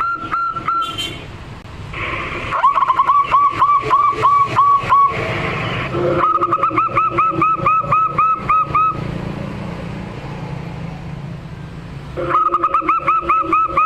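Zebra dove (perkutut) singing: three runs of short repeated coos, about three notes a second, with pauses of a second or more between runs and a low steady hiss underneath.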